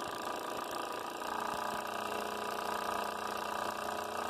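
Magneto test bench's electric drive motor spinning a left-rotating Slick aircraft magneto, running steadily as the magneto fires across the bench's spark gaps; the hum firms up about a second in. The magneto is giving a good spark and tests good.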